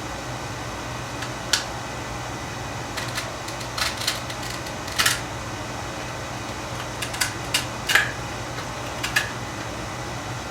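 Irregular sharp clicks and light taps from handling an RC crawler truck and its packaging, about a dozen in all, over a steady low hum.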